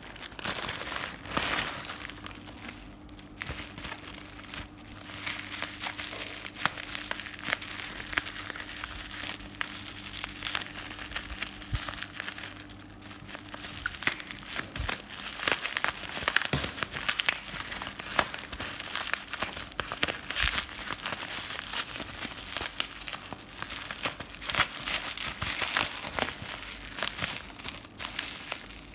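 Plastic packaging crinkling and crackling as it is handled, a dense run of small crackles and clicks.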